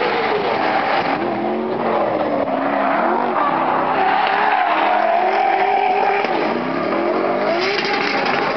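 Two drift cars sliding in tandem: their engines rev hard, the pitch rising and falling again and again as the drivers work the throttle, over the squeal of the spinning, smoking rear tyres.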